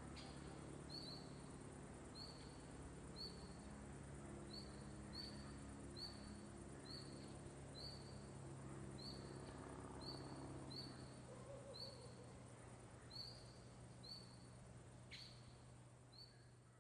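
Faint forest ambience: a short high chirp repeats just over once a second over the low, steady drone of a distant small plane's engine. The drone dies away and everything fades out at the very end.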